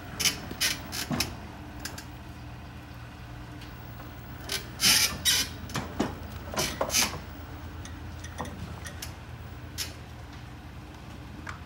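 Raymond electric pallet jack handling a shrink-wrapped pallet: a steady low hum with two clusters of short scraping, creaking noises, one near the start and one around the middle.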